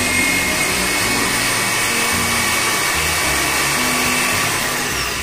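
Electric drill running at a steady high whine as its bit bores a hole down through the model railway layout's thermocol base; the motor starts to wind down near the end.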